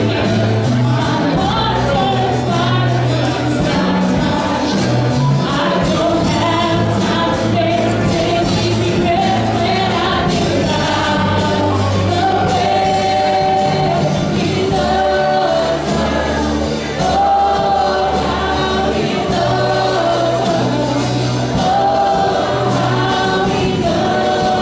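Worship team singing a gospel-style praise song in unison with a band: steady bass and drums under held vocal lines.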